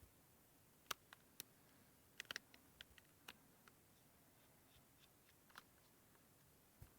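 Faint, scattered light clicks and ticks of a screwdriver and small screws against the plastic casing of a Remington electric razor being taken apart, with near silence between them.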